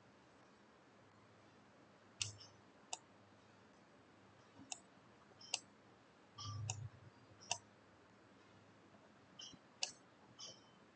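Faint computer mouse button clicks, about eight scattered single clicks, with a soft low bump partway through.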